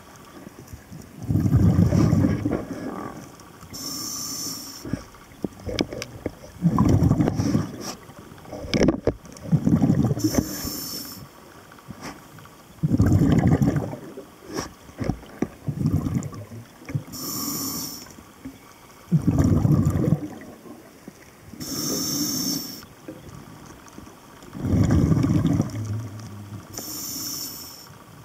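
Scuba diver breathing through a regulator underwater: a short hiss on each inhale and a longer bubbling rumble of exhaled air, repeating in a slow rhythm of about one breath every five or six seconds.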